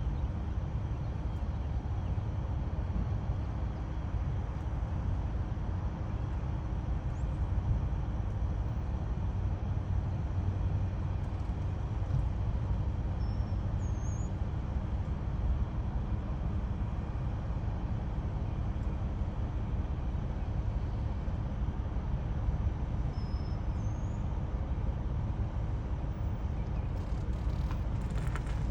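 Steady low rumble of background noise, with a few faint, short, high bird chirps coming in two pairs about ten seconds apart.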